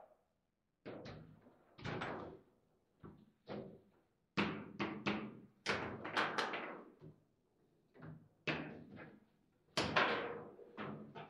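Table football in play: a run of sharp, irregular knocks and clacks as the ball is struck by the rod-mounted figures and bounces off the table, with the rods rattling as they are shoved and spun.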